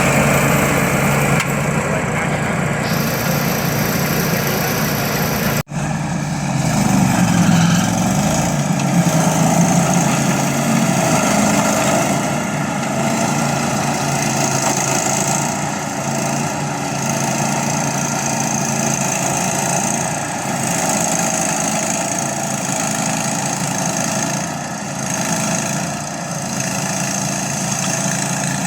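Engine of a remote-control lawn mower running steadily. The sound cuts out for an instant about six seconds in, then carries on.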